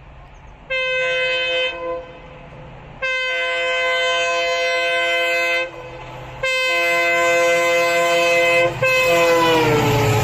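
Indian Railways electric locomotive's air horn sounding three long blasts as the train approaches, then a fourth that drops in pitch as the locomotive passes. It is followed by the loud rumble of the coaches rolling by.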